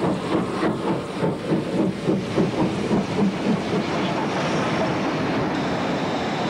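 Southern Region Pacific steam locomotive working a train through the station: exhaust beats about three a second, giving way about four seconds in to a steady rumble of the engine and coaches passing close by.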